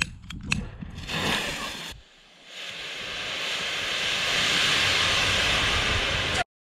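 KNDX (potassium nitrate and dextrose) sugar rocket propellant burning in a static test without a nozzle. It gives a rushing hiss that builds up over about a second and a half, holds steady and loud, and cuts off suddenly near the end. A couple of sharp clicks and a short burst of noise come before it.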